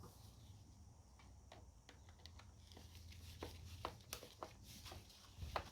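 Near silence over a low hum, with a few faint scattered clicks and taps, the loudest near the end.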